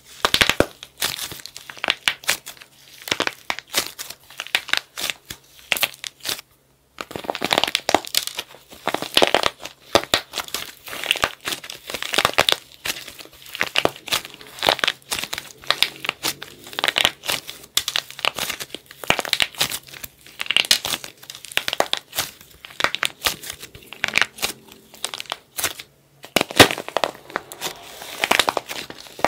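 Dried plaster clay shell cracking and crunching as hands squeeze it into soft clay: dense runs of small crackles and snaps, with brief pauses about seven seconds in and a few seconds before the end.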